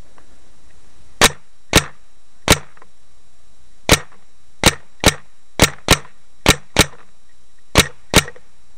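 Paintball marker firing about a dozen sharp single shots at an uneven pace, sometimes two in quick succession.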